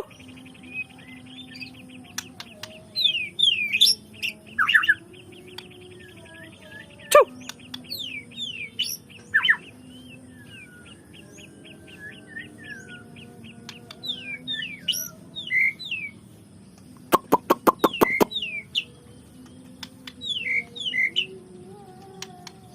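White-rumped shama (murai batu) singing: a varied run of whistled, fast up-and-down sweeping notes and rapid trills. About three-quarters of the way through comes a quick run of about eight sharp clicks.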